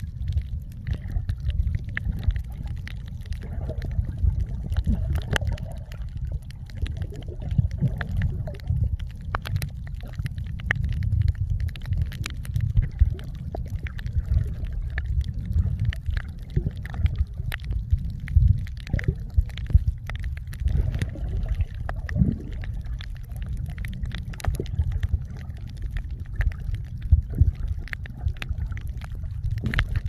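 Sound recorded underwater by a submerged camera: a steady, muffled low rumble of water moving, with scattered sharp clicks and crackles throughout.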